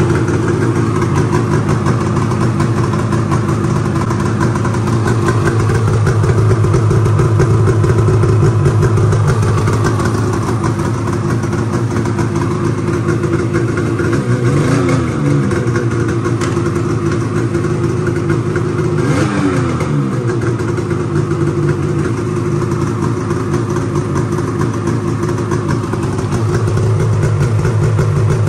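2021 Polaris Indy VR1 850 snowmobile's two-stroke twin engine, with a freshly installed GGB trail can exhaust, running at idle. Its pitch briefly dips and recovers twice, about halfway through and again about five seconds later.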